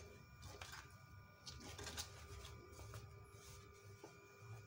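Faint rustling of paper stabiliser and cloth being handled and slid under a sewing machine's presser foot, a few soft scrapes and clicks over a faint steady hum.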